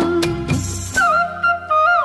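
Background music, an instrumental passage: a long held note, then a wavering, ornamented melody line from about a second in.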